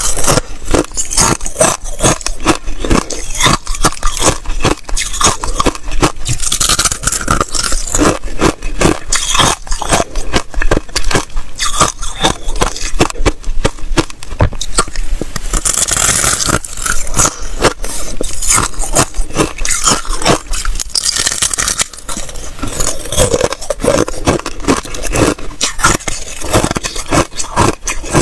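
A person biting and chewing a block of hard ice close to the microphone: continuous loud crunching and crackling.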